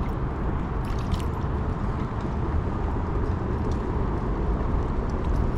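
Steady rushing of flowing river water with a low rumble, and a few faint clicks.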